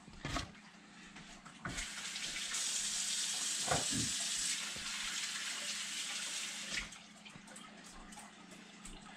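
Water running from a kitchen tap as a steady hiss, turned on a couple of seconds in and shut off about five seconds later.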